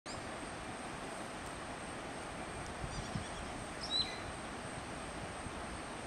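Steady rush of a river flowing over rocks, with a few short, high bird chirps about halfway through.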